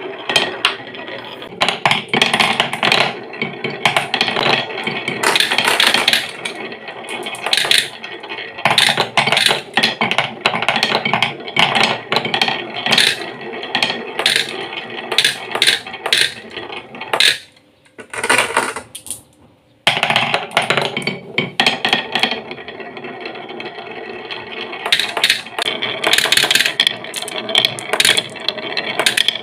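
Marbles rolling and clattering down wooden marble-run tracks and blocks, a steady rumble broken by many quick clicks as they knock against the wood and each other. The sound drops away for about two seconds some two-thirds of the way through, then the rolling and clicking pick up again.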